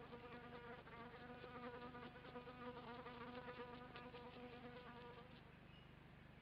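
A faint, steady buzz held on one pitch, with slight breaks, stopping about five seconds in.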